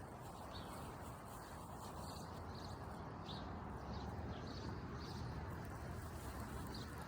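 Faint outdoor background noise with small, high chirps now and then, typical of birds calling.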